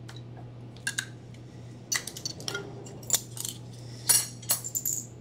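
Glassware clinking: a string of short, sharp clinks and taps, some with a brief high ring, over a low steady hum.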